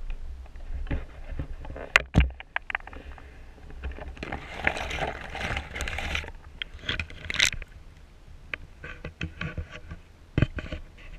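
Handling noise of a GoPro camera moved about underwater: irregular clicks and knocks, with a longer rushing, scraping stretch about four to six seconds in.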